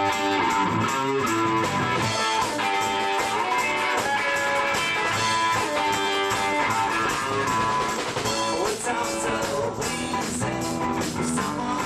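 Live rock band playing an instrumental passage: electric guitar over bass and a drum kit keeping a steady beat.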